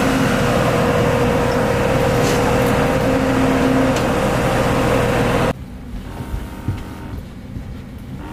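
Loud, steady jet-aircraft noise on an airport apron: a whine held on one pitch over a rumble. About five and a half seconds in it cuts off suddenly to the much quieter hum inside an aircraft cabin, with a few faint knocks.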